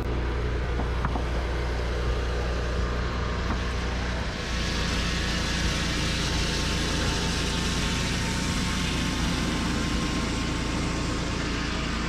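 Mahoe Minimax swing-blade sawmill's engine running steadily; about four seconds in, the circular blade enters a white oak cant and the hiss of the blade cutting through the wood joins in and keeps on.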